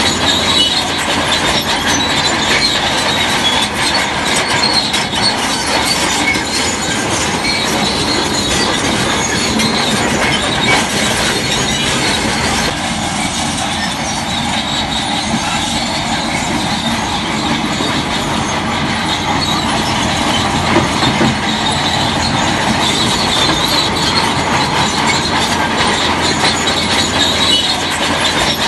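Crawler bulldozer at work: its diesel engine runs steadily under the steel tracks' continuous squealing and clanking.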